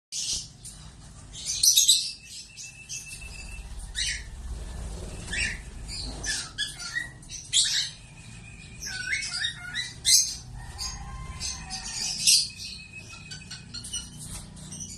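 Lovebirds chattering: many short, high, sharp chirps in quick succession, with a few louder calls now and then, over a faint low rumble.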